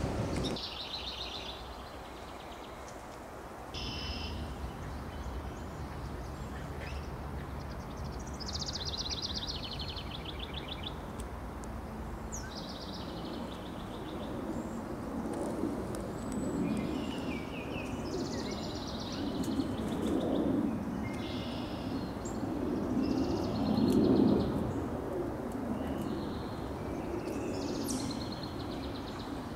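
Several songbirds singing: short trilled and buzzy phrases repeating every second or two. Beneath them a low rumble swells a few times in the second half, loudest about two-thirds of the way through.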